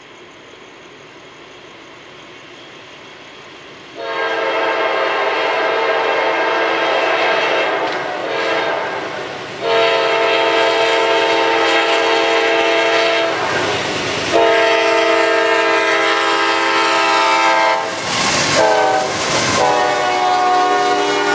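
CSX freight locomotive's air horn sounding a series of long, loud blasts as the train approaches. Its pitch drops as the lead locomotive passes near the end, over the rumble and clatter of the rolling train.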